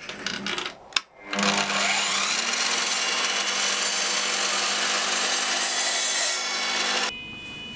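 A few scrapes and a click, then a power miter saw starts about a second in, its motor whine rising as it spins up. It runs steadily while the blade nibbles a shallow dado in a maple board, taking a little more off to loosen a tight fit, and stops abruptly near the end.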